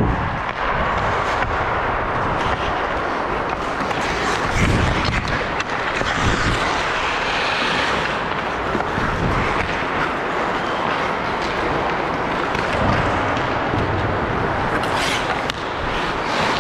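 Ice hockey play: skates scraping and carving on the ice under steady rink noise, with a few sharp clacks of sticks or puck about four seconds in and again near the end.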